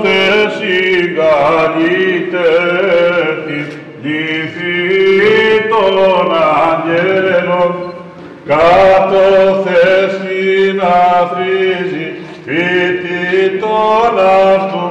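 Male voices singing Byzantine chant, a melody moving over a held low drone note, in phrases that break off and start again every few seconds.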